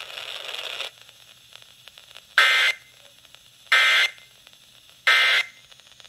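Three short, identical buzzing data bursts of an Emergency Alert System end-of-message code, about 1.3 seconds apart, played through a handheld weather radio's small speaker after about a second of hiss. They mark the end of the relayed severe thunderstorm warning.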